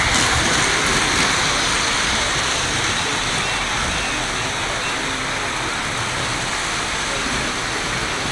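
Lionel model trains running on the layout's metal track, making a steady whirring rush with no distinct beats.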